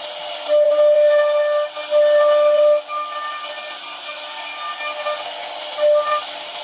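CNC router spindle cutting: a steady high-pitched whine over a hiss, growing louder in stretches as the bit bites, loudest for about two seconds from half a second in and again briefly near the end.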